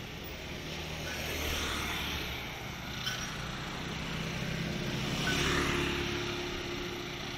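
Motor scooters riding past on a street, their small engines humming; the sound swells twice, loudest about five and a half seconds in as one passes close by.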